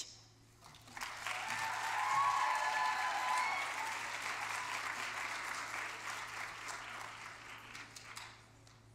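Audience applauding, starting about a second in and gradually fading out near the end.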